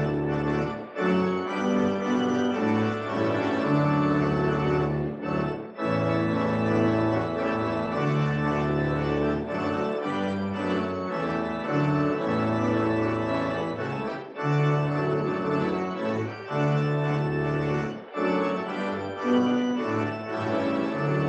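Pipe organ playing sustained chords over a changing bass line, with a few brief breaks between phrases.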